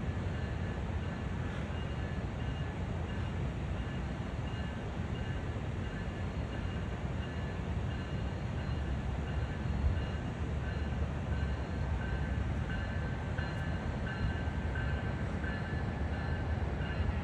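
Train rolling past: a steady low rumble of wheels on the track, with faint high squeaks coming and going.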